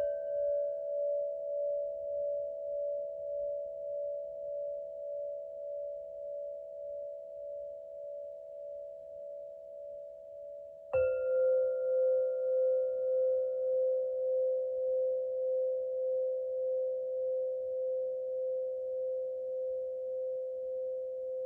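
Singing bowls struck twice, once at the start and again about eleven seconds in. Each strike leaves several close, pure tones ringing together with a slow wavering pulse as they gradually fade.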